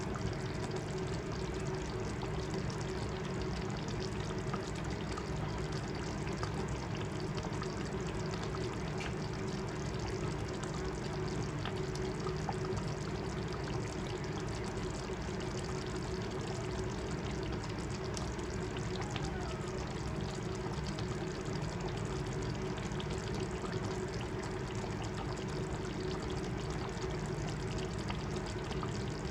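Steady watery bubbling and trickling, typical of a pot of chicken curry simmering on the stove, over a faint steady hum.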